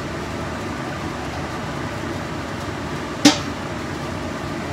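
Steady fan-like hum, with one sharp clink about three seconds in as cooking oil is poured from a plastic bottle into an empty stainless steel stockpot.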